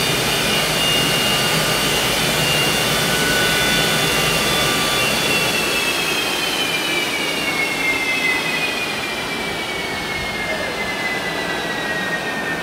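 Westinghouse J34 turbojet running on a test stand: a loud rushing roar with a high whine on top. From about halfway through, the whine falls steadily in pitch and the noise eases slightly as the engine spools down.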